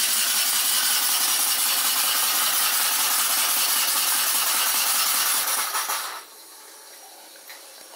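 Polish school model steam engine running under steam, with a steady loud hiss of steam, driving a small generator. The sound dies away about six seconds in as the engine stops and the generator no longer lights the plasma ball.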